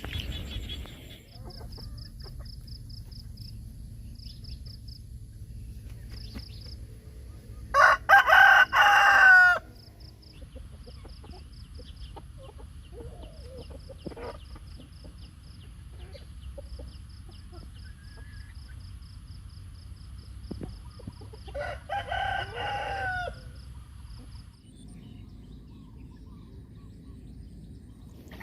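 A rooster crowing twice, each crow about two seconds long and some fourteen seconds apart, over a faint, steady, high pulsed chirping.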